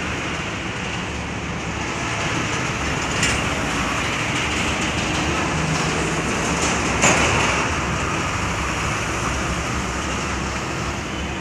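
Steady rumble of truck traffic and engines in a container yard, with two short knocks about three and seven seconds in.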